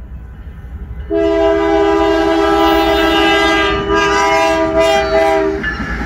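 Air horn of an approaching BNSF freight locomotive sounding one long, steady chord blast for the grade crossing, starting about a second in and lasting about four and a half seconds. Near the end, the horn stops and the locomotive's rumble and wheel noise take over as it passes close by.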